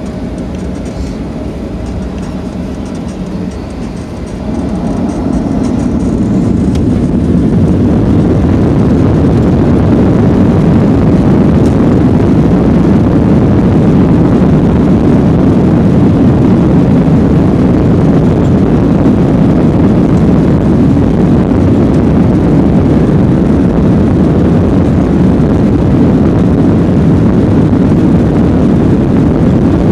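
Jet engines of a Boeing 737-800, CFM56 turbofans, heard from inside the cabin by the wing. They run at low power at first, then spool up about four seconds in to takeoff thrust. From there they hold a loud, steady low rumble through the takeoff roll.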